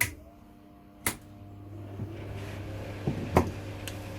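Fan heater with its safety cut-out bypassed, running hot and giving off a steady low electrical hum that builds over the first couple of seconds, with three sharp knocks or clicks.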